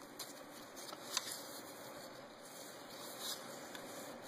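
Faint handling noise with a few light clicks, the sharpest about a second in, as the seated planetary gear assembly of a 4T60E transmission is turned by hand.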